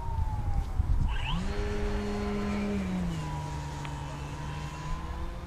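Hangar-9 Funtana S90 radio-controlled aerobatic model plane's motor droning in flight, its pitch rising a little over a second in, holding, then dropping to a lower steady note about halfway through. A low rumbling runs under it, strongest in the first second.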